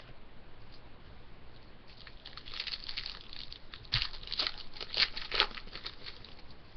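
Crinkling and rustling of a hockey card pack's wrapper and cards being handled, in a string of short strokes that pick up about two seconds in, with a dull knock about four seconds in.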